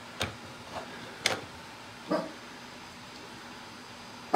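A dog barking in short separate barks, four or so, the loudest near the end: alarm barking at a delivery arriving.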